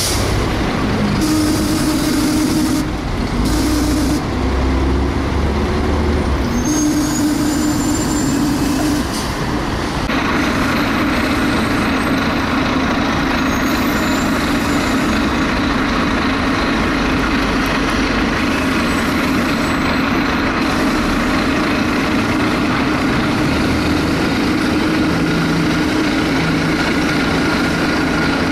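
A Volvo B7TL double-decker bus's diesel engine and gearbox running under way, heard from on board. The engine note shifts and steps during the first several seconds, changes about ten seconds in, then holds steadier.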